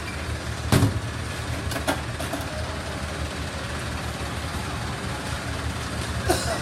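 Vehicle engine idling steadily, with a sharp knock about a second in and a couple of lighter clicks later.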